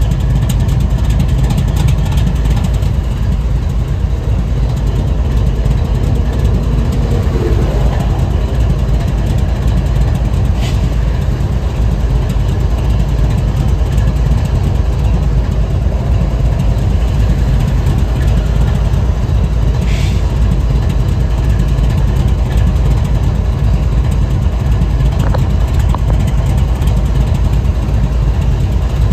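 Diesel-electric freight locomotive idling with a steady low rumble.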